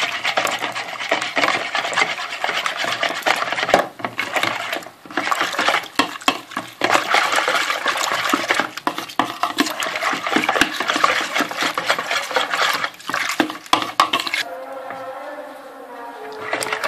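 Wire whisk beating a thin egg, milk and flour batter in a bowl: fast, continuous scraping and clicking against the bowl, with a couple of brief pauses. Near the end the whisking stops and a steady pitched sound comes in.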